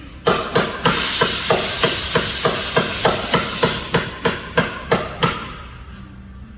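Rapid hammer blows on metal, about three a second for some five seconds, with a steady hiss beneath the first half.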